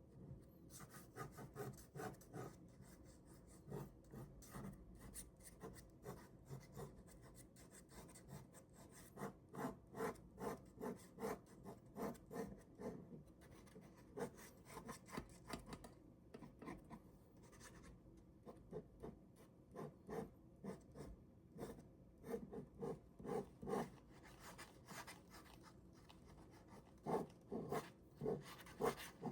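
Ballpoint pen drawing on paper: short scratchy strokes in quick runs, loudest near the end.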